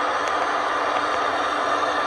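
Model train running past on layout track: a steady running noise with a few faint clicks from the wheels over the rails.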